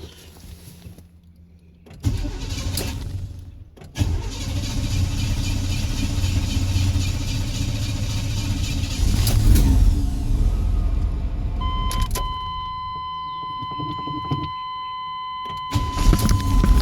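Car engine being started with difficulty: the starter cranks for about two seconds and the engine catches about four seconds in, then runs loud and is revved, once around nine seconds in and again near the end. From about twelve seconds in, a steady high electronic warning tone sounds over the engine.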